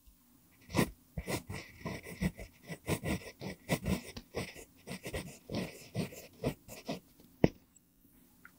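Pentel PG5 mechanical pencil with a mpingo wood barrel writing in cursive on lined paper: a quick run of short graphite-on-paper scratching strokes that starts about a second in, then one sharp tick near the end.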